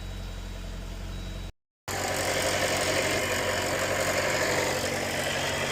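A 2020 Jeep Wrangler's 2.0-litre turbocharged four-cylinder engine idling steadily just after an oil change, run to circulate the fresh oil. The sound cuts out briefly about one and a half seconds in and comes back louder.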